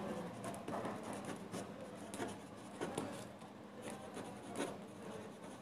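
Pen writing on paper: faint, irregular scratching strokes as handwritten words are put down.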